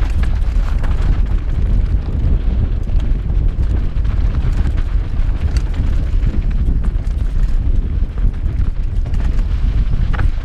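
Wind buffeting the microphone of a helmet-mounted GoPro Hero4 as a downhill mountain bike descends a loose dirt trail at speed: a steady low rumble, with scattered knocks and rattles from the bike and tyres over the rough ground.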